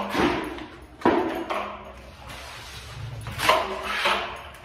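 Handling noise as a leather belt is wrapped around a steel electric water-heater tank: a few sharp knocks against the metal shell, with scuffing and rustling in between.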